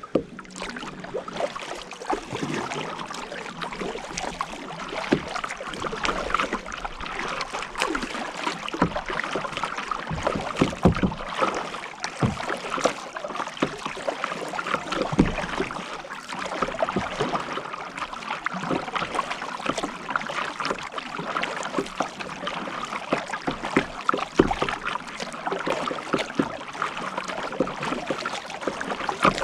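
Kayak paddling: paddle blades dipping into the water and splashing, with water running off them, a steady stream of small irregular splashes.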